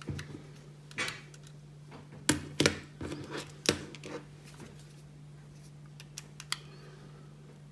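Sharp clicks and knocks of a screwdriver and a metal hard-drive caddy being handled while its screws are taken out. The loudest knocks come in the first four seconds, then only a few faint ticks, over a steady low hum.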